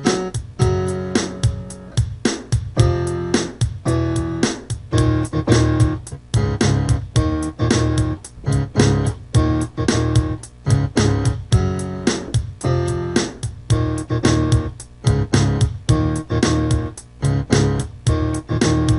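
Instrumental music from a home demo: a bass riff played in short, choppy notes with other pitched instruments over it, in a steady rhythm.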